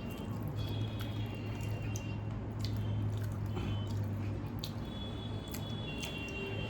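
Close-up mouth sounds of eating water-soaked rice: wet, squishy chewing with small clicks, over a steady low hum.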